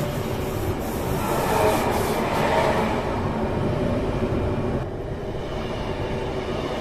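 Steady train noise heard from the driver's cab of a CityElefant electric unit as a double-deck train runs past on the adjacent track. The highest hiss drops away about two-thirds of the way through.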